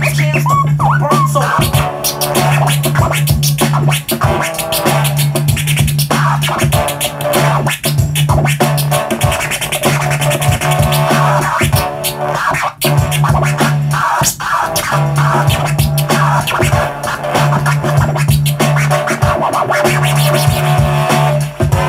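Turntable scratching: vinyl records pushed back and forth by hand on the decks and chopped up with the mixer, old-school turntablism style. A backing beat with a low bass note drops in and out under the scratches.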